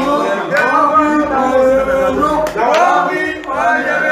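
A group of men's voices singing or chanting together, several voices overlapping with some notes held, and a couple of sharp clicks about two and a half seconds in.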